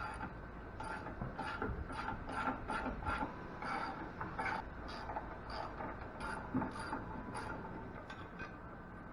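Ratchet wrench clicking in a steady run of short strokes, about two to three a second, as bolts are backed out of a steel machine table.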